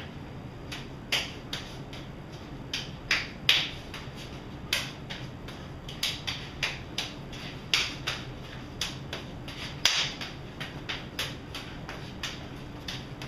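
Hands and forearms smacking together as two partners trade strikes and blocks in an eskrima tapping drill: a run of sharp slaps, about two or three a second at an uneven rhythm.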